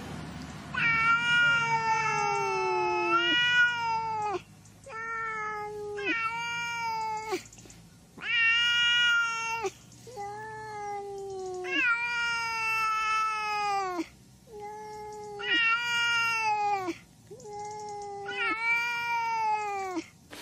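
Domestic cat meowing insistently: about ten long, drawn-out meows in a row with short pauses between, each sliding down in pitch at its end.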